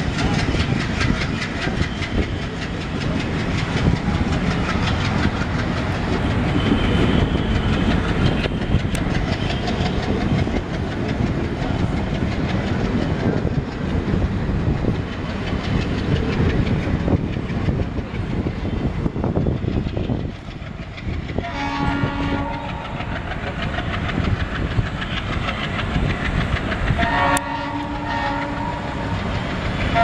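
Passenger coaches rolling past with wheels clattering over rail joints as the train pulls away. About two-thirds of the way through, and again near the end, the departing WDM-3A diesel locomotive sounds its horn, a held chord of several tones.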